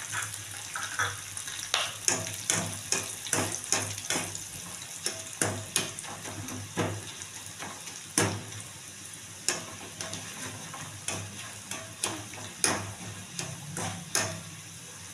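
Peanuts, roasted gram, coconut slices and freshly added curry leaves frying in hot oil in a kadai: a steady sizzle with irregular sharp pops and crackles, and a utensil stirring in the pan now and then.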